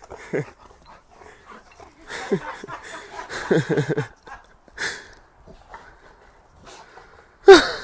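A dog making short vocal sounds every second or so, then one much louder call falling in pitch near the end.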